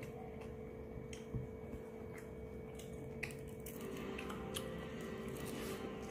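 Quiet eating sounds: fingers working rice on a plate and chewing, with a few small sharp clicks, over a steady low hum.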